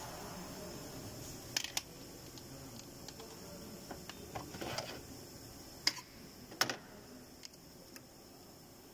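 A handful of light clicks and taps, about five scattered over several seconds, from handling parts and a bottle under the hood, against a faint steady workshop background.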